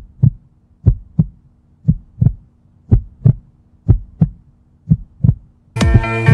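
Heartbeat sound effect: low double thumps about once a second, six beats in all. Music with a sustained chord comes in near the end.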